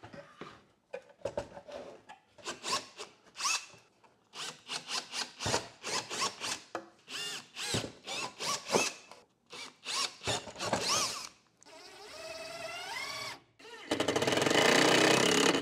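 Small cordless drill run in many short trigger bursts, its motor whine rising and falling, pre-drilling mounting holes in a plastic electrical enclosure. Near the end comes a longer, louder steady run as a screw is driven through the box into a plywood wall.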